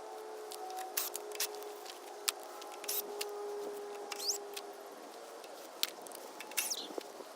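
Scattered light clicks and taps of hand tools and small mower parts being handled, with two short rising squeaks and a faint steady hum underneath.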